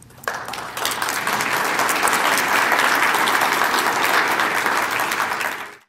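Audience applauding: the clapping starts a moment in, swells within the first second, holds steady, and is cut off suddenly near the end.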